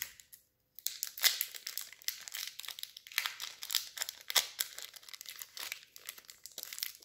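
Foil wrapper of a Magic: The Gathering booster pack being torn open and crinkled by hand: a dense run of crackles and rustles starting about a second in.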